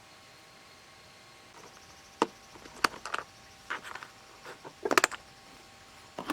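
A series of irregular light knocks and clicks, like small hard objects being handled or set down, starting about two seconds in and clustering around the fifth second.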